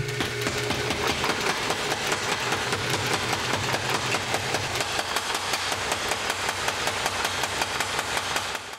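Belt-driven mechanical power hammer pounding a red-hot wrought iron bar in a steady rapid run of blows, several a second, stopping abruptly near the end. The bar is being drawn down to the starting size for a thumb latch.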